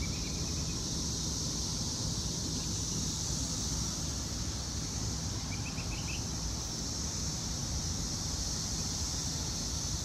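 Steady high-pitched drone of a distant chorus of periodical cicadas, with a few short bird chirps right at the start and again about halfway through.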